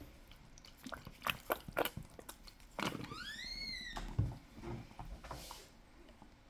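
Handling noises: a run of sharp clicks and crunches, then one high squeak that rises and falls about three seconds in, followed by faint rustling.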